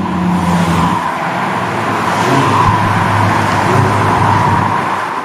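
Lamborghini Huracan EVO Spyder's naturally aspirated 5.2-litre V10 running loud through its exhaust, its pitch easing down in the first second and then holding at a steady low drone.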